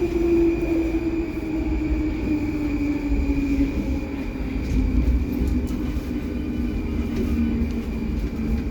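Baltiets metro train running in the tunnel, heard from inside the car: a steady rumble of wheels and running gear under a traction-motor whine. The whine falls steadily in pitch as the train slows for the next station.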